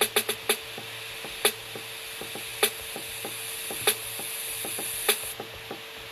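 Electronic drum samples, a sparse clicky hi-hat-style pattern, played back: a quick roll of sharp clicks right at the start, then single sharp hits about every 1.2 seconds with faint ticks between them. Underneath runs a crackling hiss with a steady hum and a steady tone.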